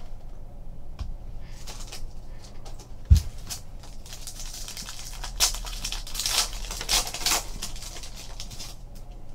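Silver foil wrapper of a trading-card pack crinkling and tearing as it is opened and the cards are pulled out, in a run of short crackles. There is a single dull thump about three seconds in.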